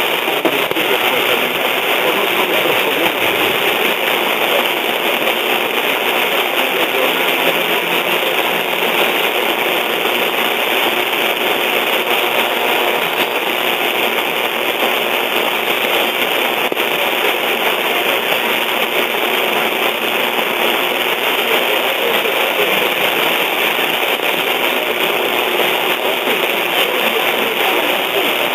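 Steady hiss and static from an AM radio receiver tuned to a distant station on 1260 kHz, an even noise band with no clear programme audio above it.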